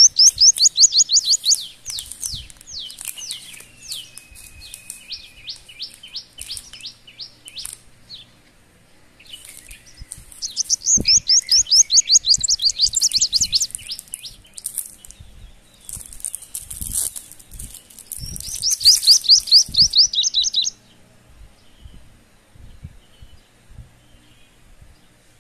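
Bird song: fast trills of high, quickly repeated chirps in bursts of a few seconds, heard three times with slower single chirps between, stopping shortly before the end.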